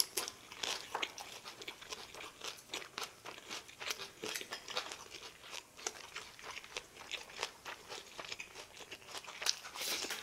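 A person chewing crunchy food close to the microphone: a dense, irregular run of crisp crunches and wet mouth sounds.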